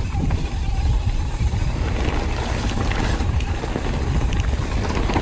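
Wind rushing over the microphone and a steady rumble of mountain bike tyres rolling over a dirt trail at downhill speed, with scattered small clicks and rattles.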